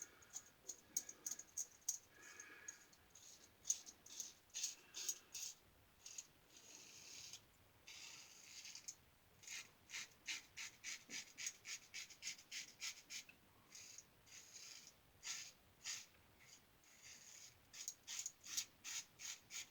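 Star Super Six safety razor with a Gem single-edge blade scraping through stubble in short strokes, coming in quick runs of several a second with brief pauses between runs.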